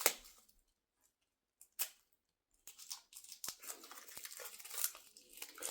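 Light rustling, tearing and small clicks of a coin set's paper and plastic packaging being handled and opened, in short scattered bursts with a mostly quiet stretch in the first half.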